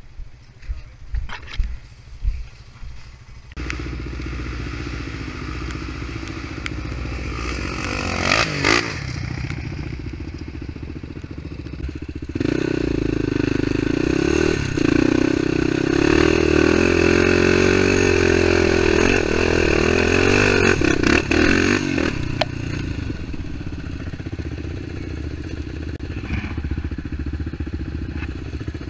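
ATV engine running as the quad rides a rough dirt trail, coming in about four seconds in after a few quieter seconds of scattered clicks. It works harder and louder under load through the middle, while climbing a muddy hill, with a brief clatter about eight seconds in, then eases off toward the end.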